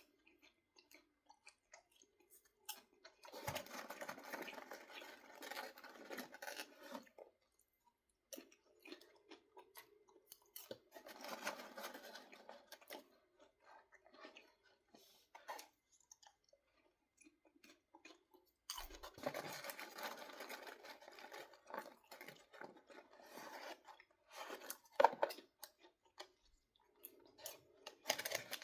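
A person chewing popcorn close to the microphone, in four spells of a few seconds each with quiet pauses between.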